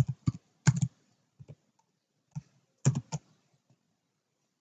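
Computer keyboard keystrokes: a handful of separate key presses in small groups, with a pause between them, stopping a little after three seconds in.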